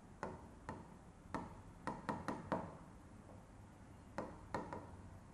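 Pen tip tapping and sliding on the glass of an interactive touchscreen display during handwriting: about ten short sharp taps in uneven clusters, with a pause of about a second and a half midway.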